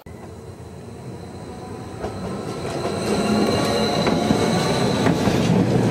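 Rhaetian Railway Allegra electric multiple unit approaching and running past along the platform. It grows steadily louder, with a steady high-pitched tone over the rumble of the wheels and scattered clicks from the rails.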